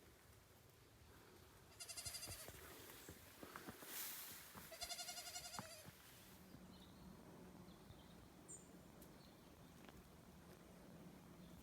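A goat bleating twice, about two and five seconds in, each call a short wavering bleat; faint and distant.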